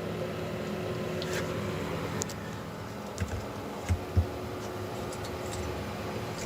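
A newly installed GE WR60X29099 evaporator fan motor in a GE French door refrigerator's fresh food section, running with a steady hum and tone now that power is restored. A few light clicks and knocks come around the middle.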